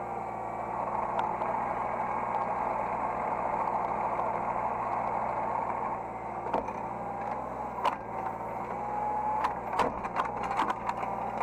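Hydraulic excavator running, its engine humming steadily with a wavering whine on top. From about halfway there is a series of sharp clanks and knocks, bunched together near the end.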